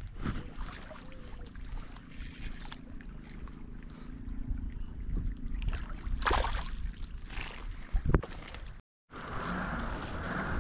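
Wind buffeting the microphone and choppy water lapping against a kayak hull, with a few short, sharp noisy bursts about six and eight seconds in.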